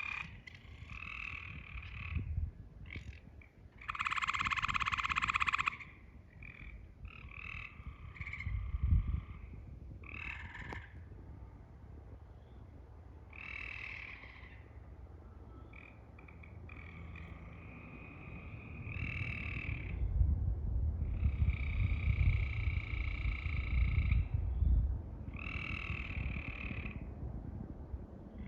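Repeated harsh, croaking animal calls, each lasting about half a second to two seconds, over a low rumble that swells in the second half.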